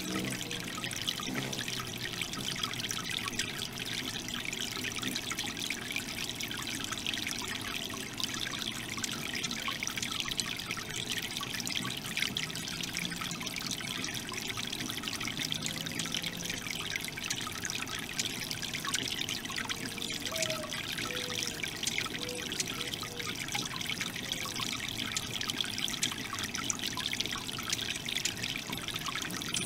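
Small three-tier garden fountain: water trickling and splashing steadily from its tiers into the basin.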